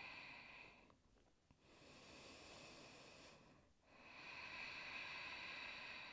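A person breathing slowly and deeply, faint: each breath is a soft hiss that swells and fades, with short pauses about a second in and just before four seconds.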